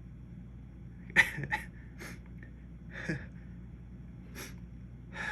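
A man's short, sharp sniffs and breaths through the nose, about six in all, the loudest and sharpest about a second in.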